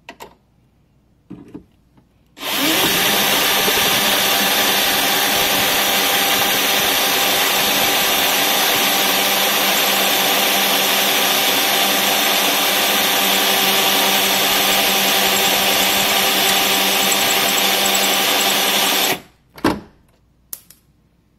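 Cordless drill with a metal twist bit drilling out the shaft of a seized bolt through its fused nut, running at steady speed for about seventeen seconds after spinning up a couple of seconds in, then stopping near the end. A couple of sharp metallic clicks follow.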